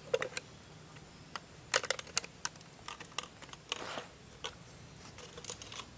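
Irregular sharp clicks and snaps, coming in small quick clusters.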